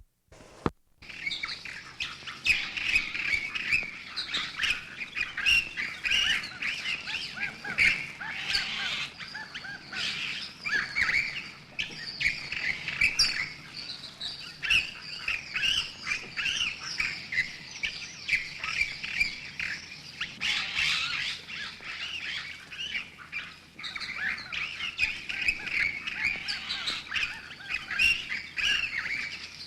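Birds squeaking and chirping in a dense, continuous stream of short, high, overlapping calls, starting about a second in.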